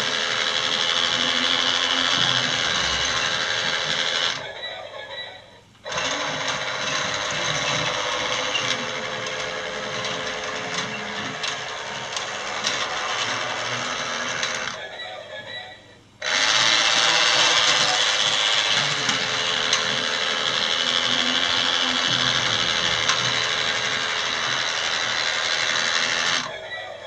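LEGO Duplo Intelli-Train locomotive's small electric motor and gears whirring as it runs on plastic track. The whir trails off about 5 s in and about 15 s in, and again near the end, each time starting up again abruptly after a second or so.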